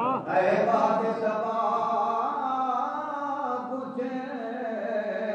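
A man's voice chanting a drawn-out melodic line into a microphone, holding each note for a second or more.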